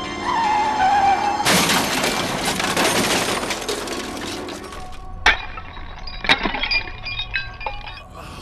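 Crash with breaking, shattering glass lasting about three seconds, followed by two sharp impacts about a second apart and scattered small clinks, over music. A short falling tone comes just before the crash.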